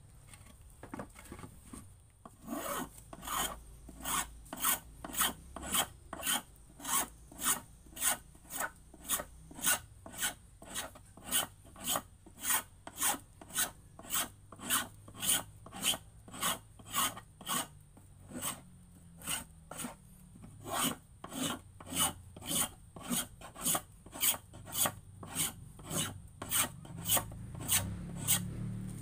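A blade scraping along a wooden plank by hand, shaving it into a boat paddle: an even run of rasping strokes, about two a second, starting about two seconds in.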